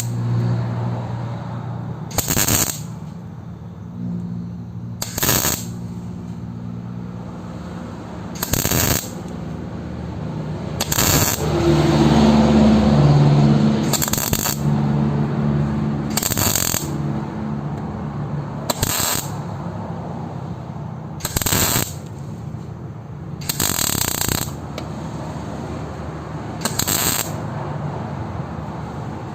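Welding on car body panels in short bursts: about a dozen brief crackling bursts of the arc, one every two to three seconds, over a steady low hum. There is a louder stretch of noise about twelve seconds in.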